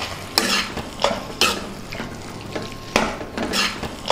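A spoon scraping and knocking against a steel kadai while stirring a thick chicken curry with grated raw mango. About five uneven scraping strokes, each with a brief metallic ring.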